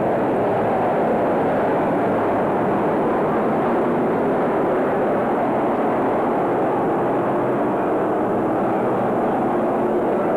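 A pack of race cars running laps on a short oval track, their engines blending into one steady, dense drone.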